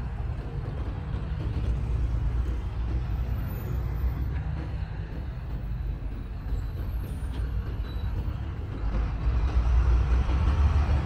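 Street traffic: a steady low rumble of vehicle engines and tyres, swelling louder about nine seconds in as a heavier vehicle passes close by.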